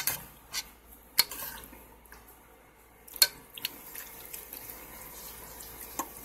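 A few sharp clicks of a utensil knocking against a cooking pot, then from about halfway a soft, steady wet sound of saucy shredded chicken being moved in the pot.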